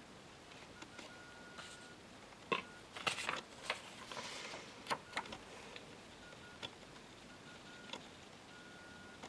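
Handwritten paper cue cards being handled and swapped: a few sharp clicks and a brief paper rustle about halfway through. Underneath, a faint steady high tone comes and goes.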